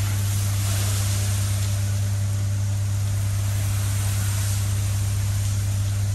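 High-pressure washer spraying water against a truck's tank, a hiss that swells and fades as the jet sweeps, over a loud, steady low hum.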